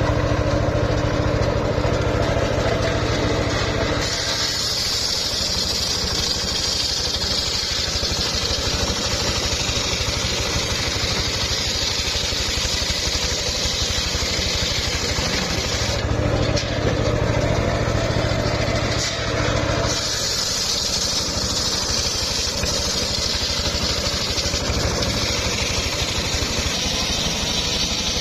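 Homemade engine-driven circular sawmill running: a steady engine drone while the blade spins free, then a loud hissing rip as the blade cuts through an old mahogany log, starting about four seconds in, pausing for a few seconds near the middle and starting again about twenty seconds in.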